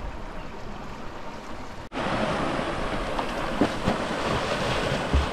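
Mountain stream rushing over rocks and a small cascade, a steady rush of water that jumps louder about two seconds in.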